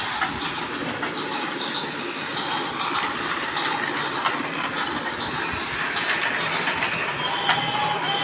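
A toy train's built-in running-train sound effect, a steady rattling rail noise, along with the toy's wheels and motor running on the plastic track. A held whistle-like tone joins in near the end.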